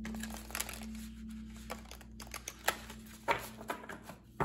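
Tarot cards being shuffled and handled by hand: irregular papery flicks and rustles, with a few sharper snaps a little after halfway and near the end.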